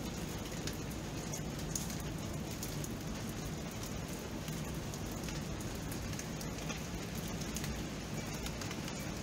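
Rain falling steadily: an even hiss with many small drop ticks scattered through it.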